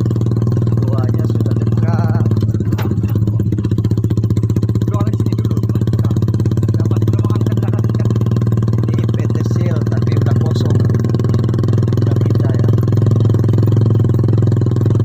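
A motorcycle engine running at a steady pitch, with faint voices now and then.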